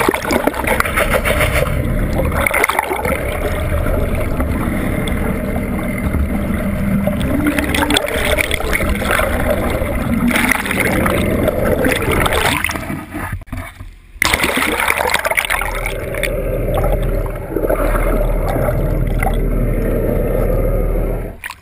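Muffled, continuous rush and churn of water past a GoPro's waterproof housing underwater, with bubbles streaming by. It drops away briefly about two-thirds of the way through, then comes back with a low rumble underneath.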